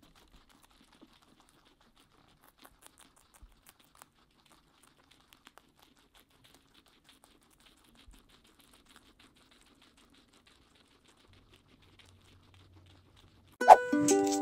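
Guinea pigs chewing and tugging at fresh carrot tops, faint scattered crunches and crinkles of leaves and stalks. Near the end, ukulele music starts suddenly and is louder than the chewing.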